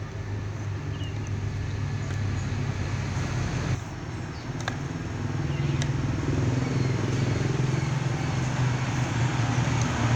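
Rewound 1980s Hitachi electric drill's motor running steadily under power, with a brief dip in level about four seconds in.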